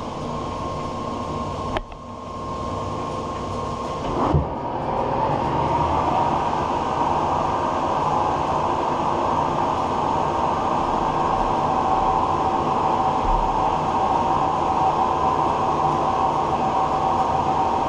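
Big 36x144 metal lathe running at its higher spindle speed, driven by belt from a temporary 5 horsepower electric motor. A brief dip comes about two seconds in and a sharp knock about four seconds in, after which it runs louder with a steady whine. The owner suspects the belt is slipping so it is not reaching full speed.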